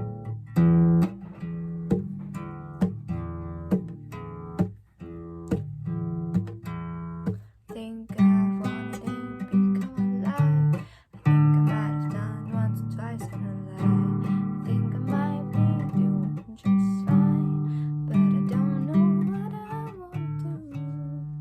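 Acoustic guitar music: separate plucked notes ring out and fade, then fuller picking with a melody on top starts about eight seconds in.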